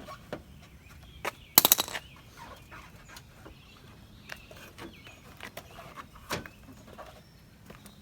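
Scattered clicks and knocks of hand work on a truck's front end as clips and bolts are removed, with a short, rapid rattle of clicks about a second and a half in, the loudest sound.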